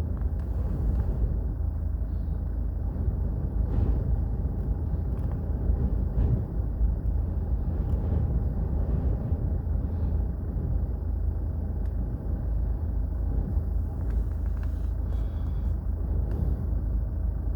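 Strong storm winds gusting, heard as a steady deep rumble.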